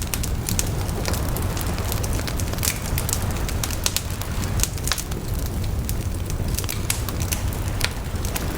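Wood campfire crackling, with many irregular sharp pops and snaps, over a steady low rush of sea waves.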